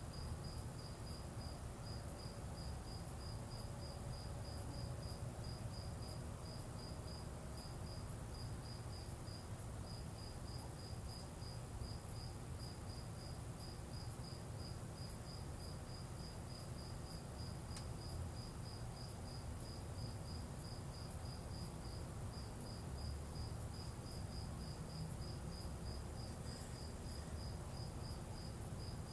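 Crickets chirping steadily, about three chirps a second, over a low steady background rumble.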